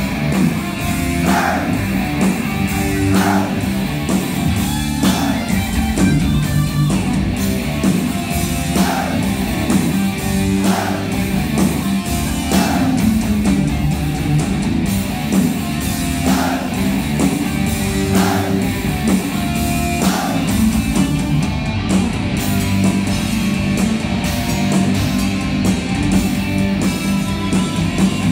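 Heavy metal band playing live: distorted electric guitars, bass and drums at full volume, with a riff repeating about every two seconds, heard from the audience in a club.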